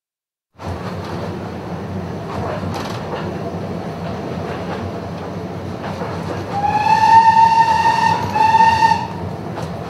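Steam train running with a steady rumble and wheel clatter, starting abruptly after silence. About seven seconds in, the locomotive's steam whistle sounds twice: a long blast that rises slightly in pitch at the start, then a shorter one.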